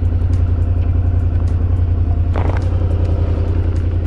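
V-twin motorcycle engine idling steadily at low revs, with a short noise about two and a half seconds in.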